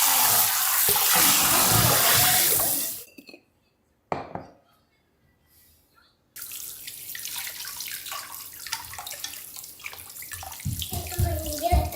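Kitchen tap running hard into a sink, shut off about three seconds in. A single knock follows, then a short quiet pause, then softer water with light clatter of dishes.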